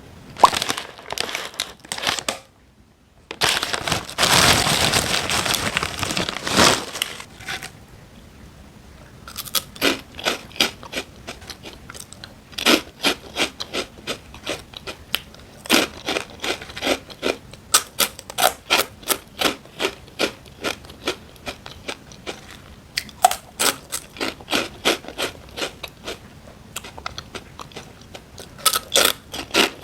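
Close-miked mukbang eating sounds: a few seconds of packaging rustling near the start, then steady crunchy chewing, about two to three crunches a second.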